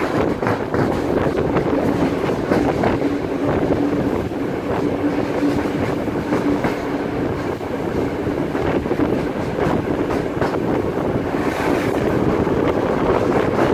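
Steam-hauled passenger train running, heard from an open coach window: the carriage wheels clatter over the rail joints against a steady rush of wind and running noise. A faint steady tone is heard through the first half.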